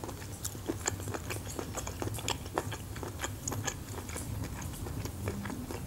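Close-miked chewing of small whole baby octopus, a run of irregular wet clicks and smacks. Under it is a steady low hum with crackle from a fireplace sound recording.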